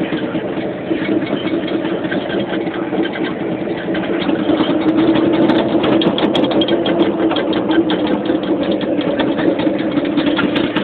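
Caterpillar D11R bulldozer's diesel engine running steadily, with a dense rapid clatter that comes in and gets louder about four and a half seconds in.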